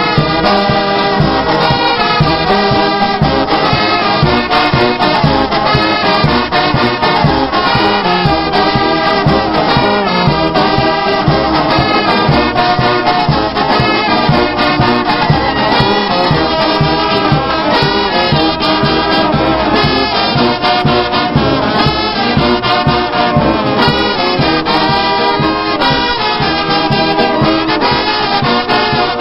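A brass band with sousaphones playing a lively tune, the horns in full chorus over a steady, even pulse.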